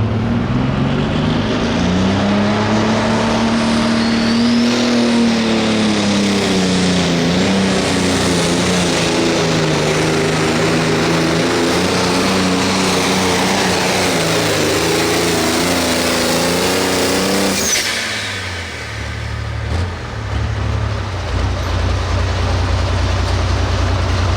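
Hot farm pulling tractor's diesel engine at full throttle under load, its pitch climbing over the first couple of seconds and then holding high and wavering for about fifteen seconds. About three-quarters of the way through it cuts off abruptly, and after a brief dip it settles to a low, steady idle.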